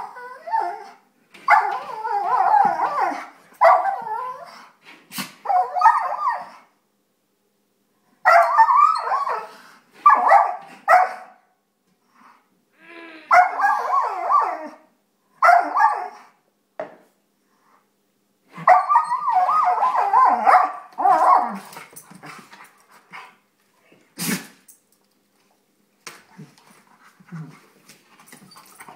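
Dogs play-wrestling: one dog gives repeated bouts of wavering, howl-like play vocalizing mixed with barks and yips, each bout a second or three long with short pauses between. A single sharp knock comes about 24 seconds in.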